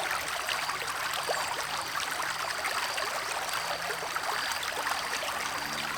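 River water flowing and babbling over rocks, a steady, dense trickling rush.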